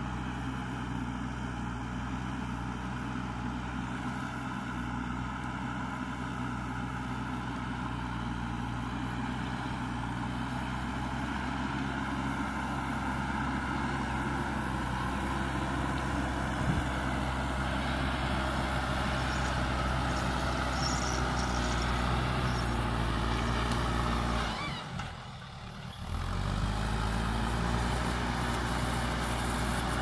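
JCB 3DX backhoe loader's diesel engine running steadily under load while it pushes soil with its front bucket. The sound drops away for about a second and a half near the end, then picks up again.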